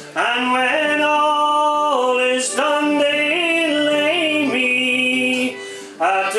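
A man singing a slow song unaccompanied, holding long notes with short steps in pitch between them and a brief breath near the end.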